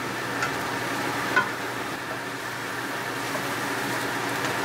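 Minced onion paste sizzling steadily in hot olive oil in a kadai, stirred with a slotted spatula, with a couple of light clicks of the spatula against the pan in the first second and a half.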